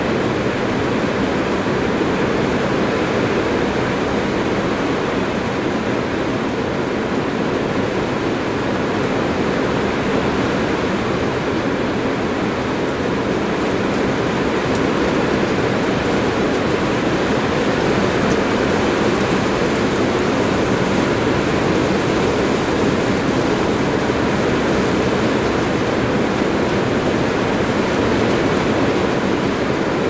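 Strong rain falling on a metal roof, heard from underneath: a dense, steady hiss of drops on the sheet metal.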